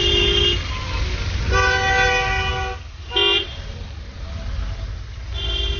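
Car horns honking in city traffic: a steady toot ending about half a second in, a longer one of about a second, a short toot, and another near the end, at different pitches, over the low rumble of engines and tyres.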